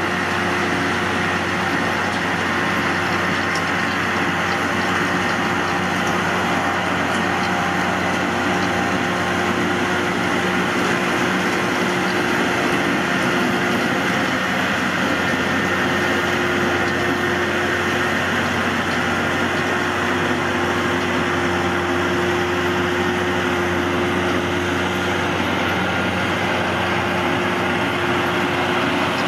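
New Holland tractor engine running under steady load while its PTO-driven self-loading forage wagon picks up cut grass. The sound is a continuous, even mechanical drone with a few held tones.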